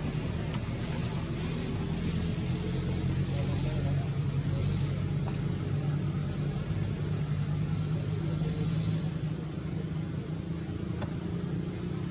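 Steady low hum of a running vehicle engine.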